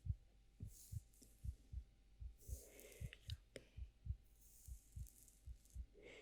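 Slow heartbeat: a soft, low double thump repeating a little under once a second, with faint brushing or rustling sounds over it a few times.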